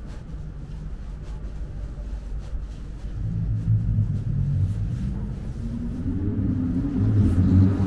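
A motor vehicle's engine running close by over low street rumble, growing louder about three seconds in and rising in pitch near the end as it speeds up.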